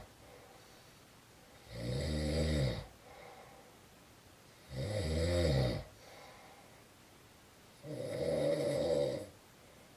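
Snoring: three loud snores, each about a second long and roughly three seconds apart, with quiet breathing pauses in between.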